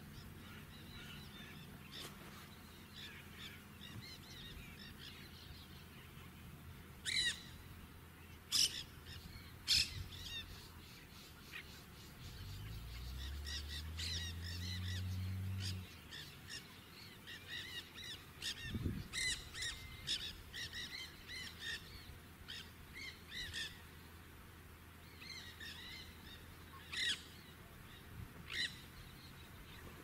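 Nanday parakeets calling: a steady chatter of short calls, broken by loud, sharp shrieks about seven to ten seconds in and again near the end. A low hum swells for a few seconds midway.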